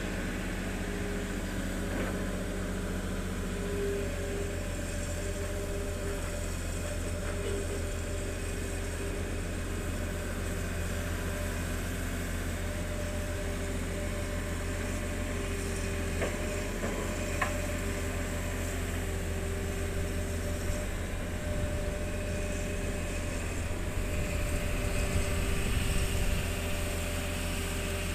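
Diesel engines of two crawler excavators, a Hitachi ZX200 and a long-reach Volvo EC210B, running steadily with a whine over the low hum. Two short knocks come a little past halfway, and the sound grows a little louder near the end.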